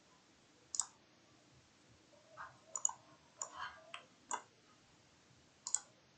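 Computer mouse buttons clicking: a handful of short, sharp clicks spaced irregularly, some in quick pairs.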